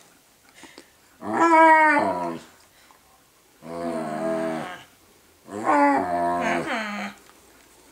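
Rough collie puppy moaning as he is rubbed: three long, drawn-out moans, the first the loudest and falling in pitch.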